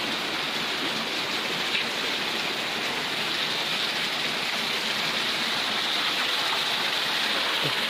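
Steady rush of water from a rocky forest stream and a small waterfall spilling over stone, even and unbroken.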